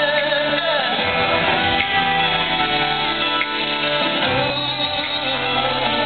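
Live pop concert music: a voice singing a melody over guitar and band.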